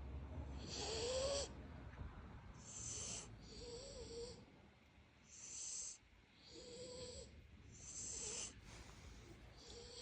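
Sleeping puppy snoring: short wheezy breaths in and out, one every second or so, many carrying a faint whistle.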